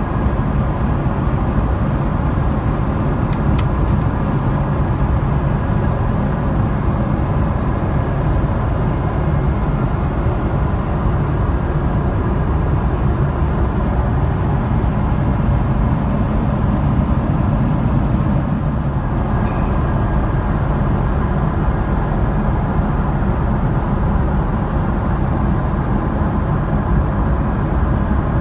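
Boeing 777-300ER cabin noise at cruise altitude: a steady, unchanging rumble and hiss, heaviest in the low end, with a faint thin hum running through it.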